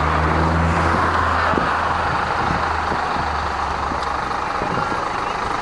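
Bus engine running with road noise as the bus drives along. A low engine hum drops away about three seconds in.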